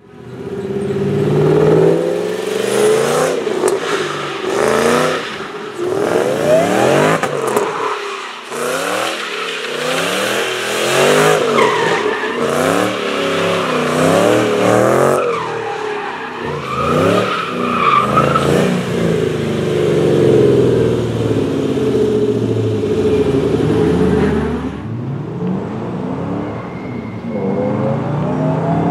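Supercharged V8 of a Ford Mustang GT drift car through a Borla exhaust, revving hard up and down again and again as the car slides, with tyre squeal from the spinning rear wheels. Near the end the engine settles to a lower, steadier note, then starts to rise again.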